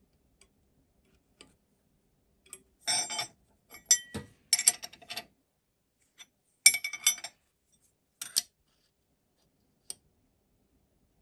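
Steel tools clinking and rattling against a clamp on a milling machine table: a spanner on the clamp nut and an engineer's square being set against model locomotive frames while they are adjusted for square. It comes in a handful of short bursts of clinks, the loudest a little past the middle.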